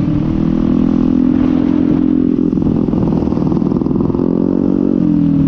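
Honda MetRuck scooter's engine running while riding at road speed, with low wind rumble on the microphone. The engine note wavers in the middle and settles slightly lower near the end.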